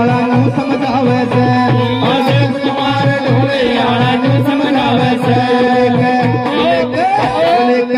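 Live Indian devotional folk music: a hand drum keeps a steady beat of about two strokes a second under a held drone note and a melody that glides in pitch.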